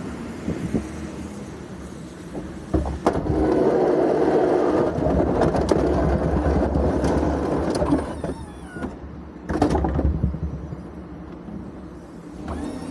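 Snowplow on a Ford F-350 pushing snow across a parking lot: the plow blade scrapes and rattles over the pavement with the truck running, louder and denser for several seconds in the middle.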